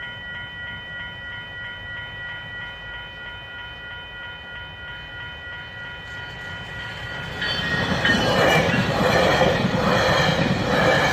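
GO Transit commuter train: first a steady set of high-pitched tones over a low rumble. About seven seconds in, the train's sound swells loud into rumbling and rushing with a regular wheel clatter as it passes close.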